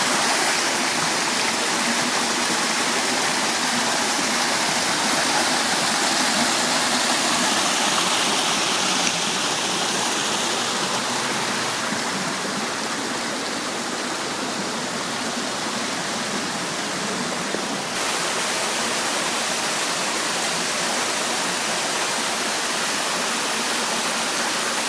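Waterfall: a steady, loud rush of falling water, shifting slightly in tone about eighteen seconds in.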